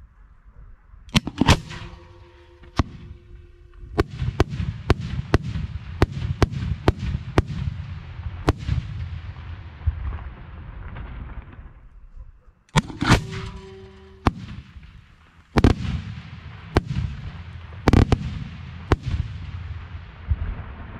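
Aerial firework shells fired from mortar tubes close by and bursting: a long series of sharp bangs over a deep rumble. Loud clusters come about a second in and again about halfway, each followed by a short steady tone, with a fast run of about two bangs a second in between.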